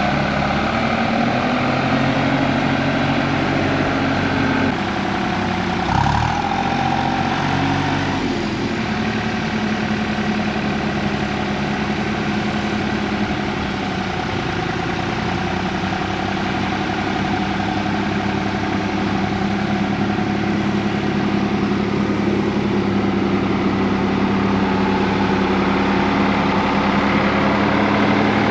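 John Deere 3046R tractor's diesel engine running. The engine speed shifts up and down over the first several seconds, with a short dip and a clunk about six seconds in, then it holds steady.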